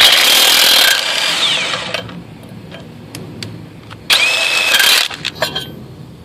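Kobalt 24V 1/2-inch cordless impact wrench hammering on a truck's lug nuts to loosen them, in two bursts. The first lasts about two seconds and is loudest in its first second. A shorter one-second burst comes about four seconds in.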